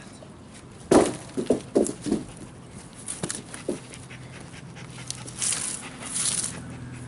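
A heavy wooden log dropped onto the forest floor lands with one loud thud about a second in, followed by a few smaller knocks as it settles. A dog pants.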